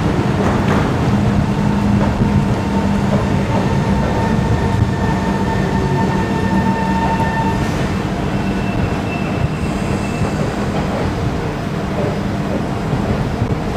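Singapore MRT electric train moving along the platform, the rumble of its wheels overlaid by steady motor whine tones that fade out about eight to ten seconds in.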